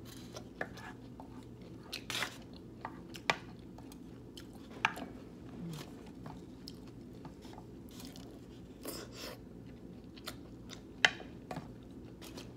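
A person chewing and biting food close to the microphone, with irregular wet mouth clicks and smacks, the sharpest about three, five and eleven seconds in, over a steady low hum.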